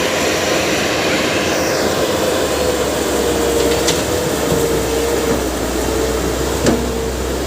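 Caterpillar 321B excavator's diesel engine running steadily under a constant whine, with two short clicks, one about halfway through and one near the end.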